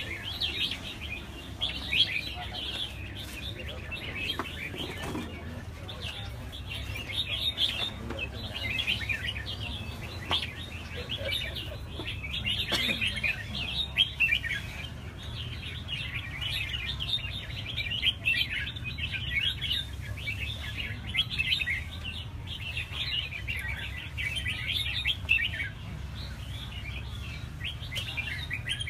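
A chorus of many caged red-whiskered bulbuls singing and calling at once, a dense, unbroken stream of overlapping bright chirps and warbles, over a low steady rumble.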